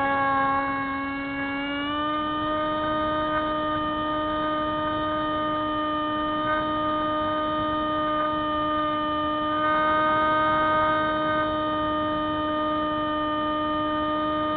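Spyhawk RC plane's electric motor and propeller running steadily with a pitched whine, rising slightly in pitch about two seconds in as the throttle is opened a little, then holding.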